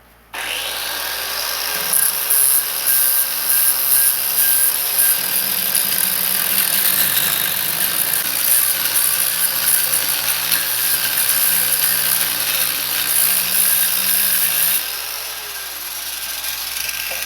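Warrior 4.3 amp angle grinder with a flap disc spinning up and grinding welding slag and spatter off metal, the loudness rising and falling as the disc is pressed in. About fifteen seconds in the grinding gets lighter.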